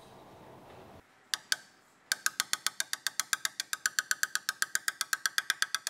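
Hammer striking the shaft of a seal driver to drive a new inner axle seal into the axle housing: two single taps, then a fast, even run of light metallic taps, about nine a second.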